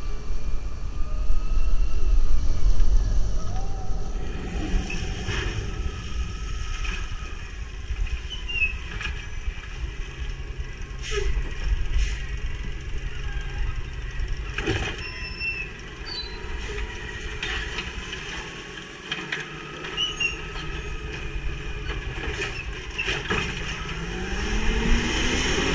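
Natural-gas (CNG) automated side-loader garbage truck running along a street and stopping at curbside carts, with sharp air-brake hisses and clanks from its automated arm. Near the end the engine revs up, its pitch rising.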